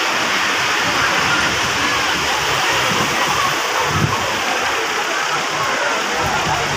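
Crowd hubbub: many voices talking at once, merging into a steady, dense noise.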